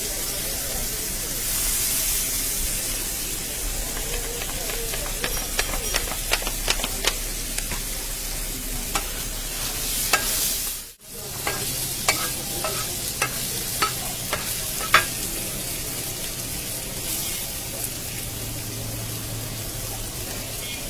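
Food frying with a steady sizzle, and a metal utensil clicking and tapping against the pan repeatedly through the middle stretch. Near the middle the sound briefly drops out.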